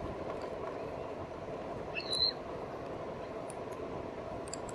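Steady riding noise from a RadMini fat-tyre electric bike cruising on pavement: a continuous hum of tyres, motor and breeze. One short, high, rising chirp about two seconds in.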